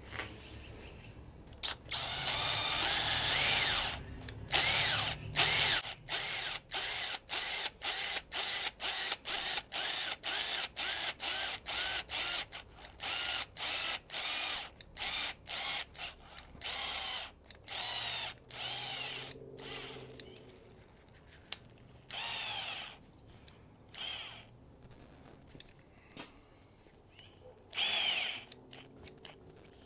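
Power drill spinning two lengths of electrical wire together into a twisted pair, run in short trigger pulses. After one long run near the start come quick spurts about twice a second, thinning to a few spaced spurts near the end.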